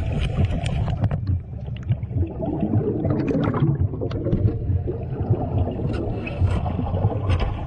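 Underwater sound inside a shark cage: steady low rumbling and gurgling of water and bubbles, with scattered sharp clicks and knocks.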